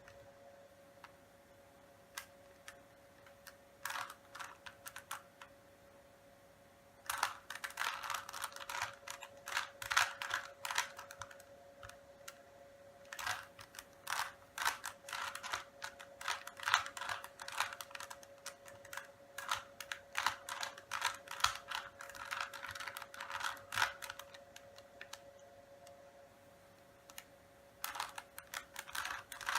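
Rubik's cube being turned by hand during a solve: the plastic layers click as they turn. The clicks are sparse at first, then come in fast dense runs of turns from about seven seconds in, with a lull of only a few clicks near the end.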